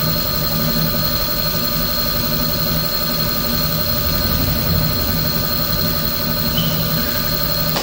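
Ninebot M95C+ electric scooter's hub motor spinning its lifted rear wheel freely on the centre stand: a steady electric whine with a high thin tone over it, run as a check for the brake disc rubbing.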